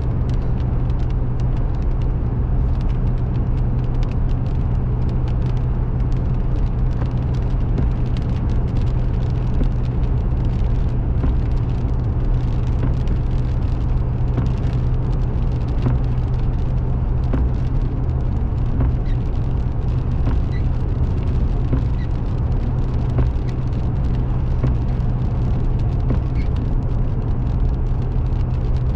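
Steady road and engine noise of a car driving at speed, heard from inside the car, with a constant low hum and scattered faint ticks.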